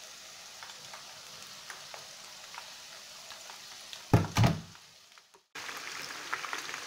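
Battered chicken strips deep-frying in hot oil in a pan: a steady sizzle. About four seconds in another strip is lowered into the oil, with a louder burst and a thump; the sound drops out for a moment, then the sizzling resumes.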